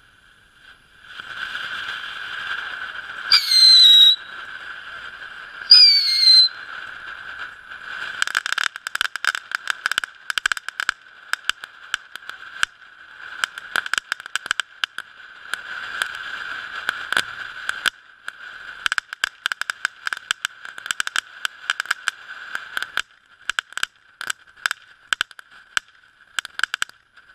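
A ground fountain firework spraying with a steady hiss. Two loud short whistles sound about 3.5 and 6 seconds in, each dropping slightly in pitch. From about 8 seconds on, a dense rapid crackling joins the hiss and keeps going.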